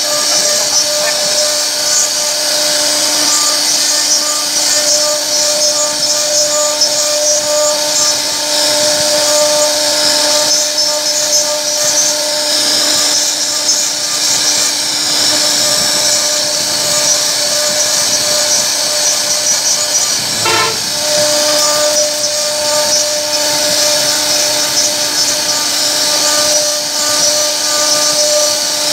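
CNC router spindle carving a wooden door panel: a steady whine over the hiss of the bit cutting wood. The tone breaks briefly about twenty seconds in.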